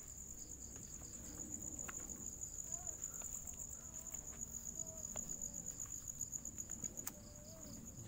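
Crickets trilling steadily in a high, rapidly pulsing chorus, with a few faint clicks and one sharp click about seven seconds in.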